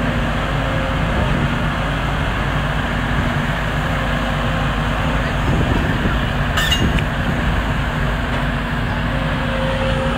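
Volvo tracked excavator's diesel engine running steadily as its boom moves over demolition rubble, with a single sharp clink about two thirds of the way through.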